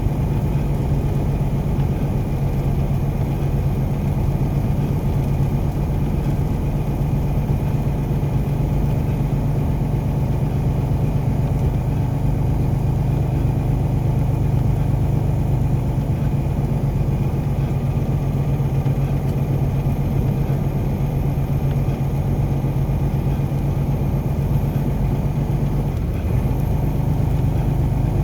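Car driving at a steady pace, its engine and road noise making a constant low drone that dips briefly near the end.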